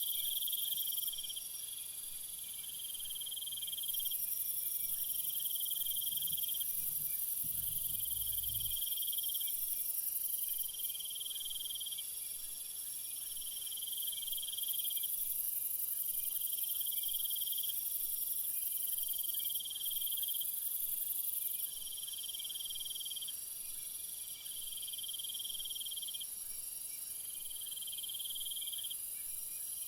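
Night insect chorus of crickets: a dense, continuous high-pitched trill, with a lower call repeating about every two seconds.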